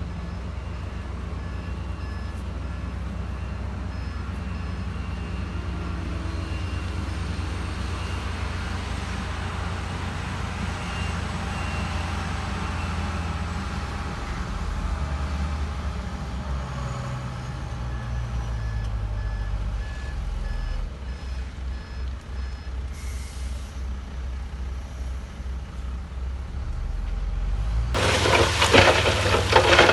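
Heavy diesel earth-moving machinery running steadily, with a reversing alarm beeping at intervals. Near the end a loud clattering, rattling noise starts suddenly.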